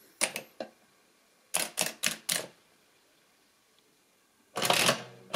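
Brunsviga 90 TA mechanical adding machine: a few sharp clicks as the minus button is pressed, then four key clicks as a number is keyed in. Near the end the side lever is pulled down and the toothed-rack mechanism clatters through a subtraction.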